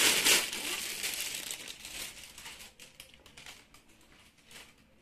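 Thin plastic wrapping crinkling as a wrapped part is pulled out of a foam-lined cardboard box, loud at first and dying away over about two seconds, then a few light rustles and clicks.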